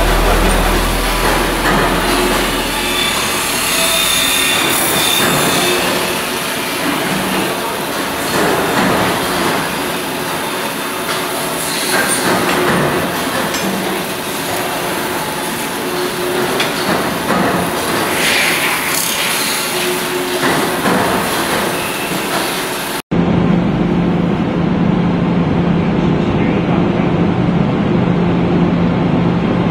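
Metal-spinning lathe turning a sheet-metal bowl while a hand-held spinning tool presses against it: a continuous rough rasp with shifting scrapes. About 23 seconds in, the sound cuts to a steady low machine hum with a rumbling mechanical noise from a forging machine shaping a red-hot steel ring.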